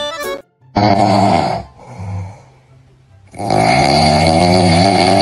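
Loud snoring: two long drawn-out snores, the second one longer, with a short quieter breath between them.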